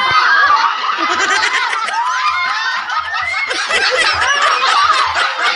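A group of people laughing together, many voices overlapping.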